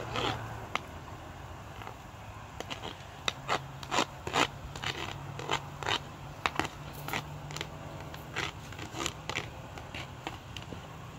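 Metal spoon scraping and tapping food off a plastic cutting board into a frying pan, a run of irregular short scrapes and clicks.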